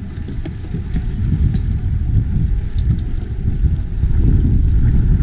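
Wind buffeting the camera microphone on an open sailboat: a loud, gusty low rumble that grows stronger about four seconds in, with a few faint high ticks.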